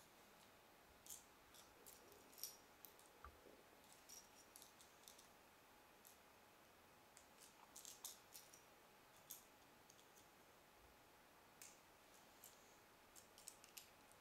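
Faint, irregular clicks and clinks of small plastic Lego pieces being handled and snapped together, over quiet room tone.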